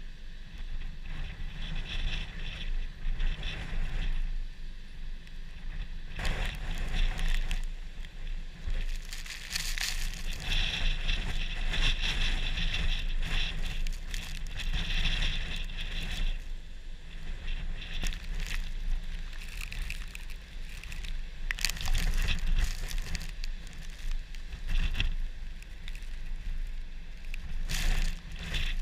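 Windstorm wind buffeting the microphone with a constant low rumble, over the rush of Lake Erie waves breaking on the shore. The wash swells and fades, with louder surges several times.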